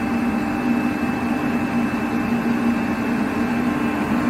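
KAESER SK27T rotary screw air compressor running steadily: an even mechanical hum with a low drone.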